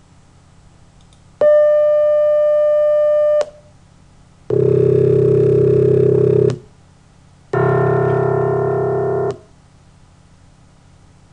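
A steady synthesized pure tone held for about two seconds, then two low, buzzy tones of about two seconds each: a sampled piano C1 note and the sum of pure tones being built, partial by partial, to replicate it. Each sound starts and stops abruptly, with short silences between.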